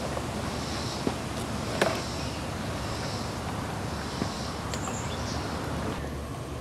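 Outdoor background with a steady low rumble and a few light clicks and knocks from items being handled. A faint, hissy high sound repeats about once a second.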